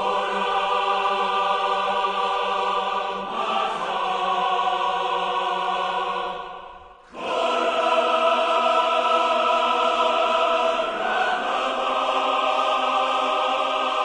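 Choral music: voices holding long, sustained chords that shift a few times, with a brief break about seven seconds in before the choir comes back in full.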